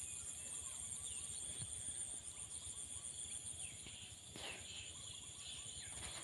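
Rural paddy-field ambience: a steady high-pitched insect drone with scattered short bird calls, one louder call about four and a half seconds in, over low wind rumble on the microphone.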